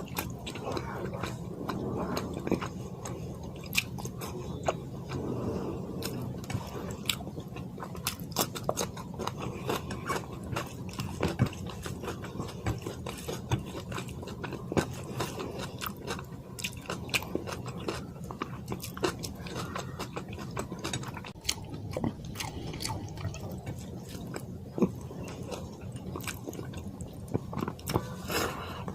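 Close-miked chewing and mouth sounds of someone eating fish curry with white rice, with many small irregular wet clicks.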